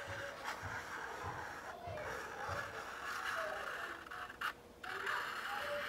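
Felt-tip permanent marker scratching across a paper plate as a long curved line is drawn, with a brief break about four and a half seconds in when the tip lifts.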